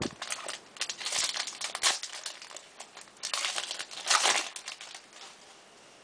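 Crinkling of a foil trading-card pack wrapper and the rustle and clicks of hockey cards being handled, in irregular spurts that die away about five seconds in.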